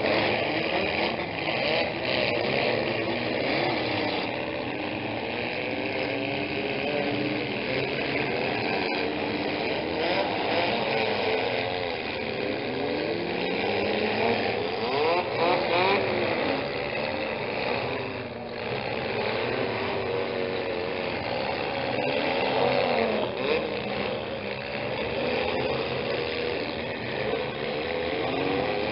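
Several small-car engines revving hard over each other as demolition derby cars ram around the arena, with a couple of sharp crashes of metal, about nine seconds in and again past halfway.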